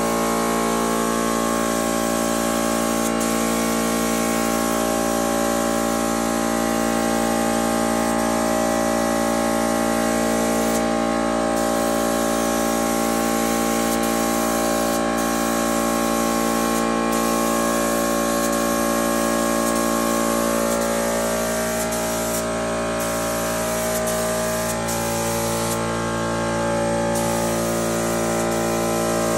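Air-powered bodywork tool running: a steady air hiss over a constant machine hum, with the air cutting off briefly a few times.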